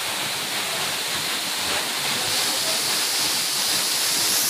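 Kapildhara waterfall's tall stream of water falling onto rocks and a pool close by: a steady rushing hiss of falling water and spray.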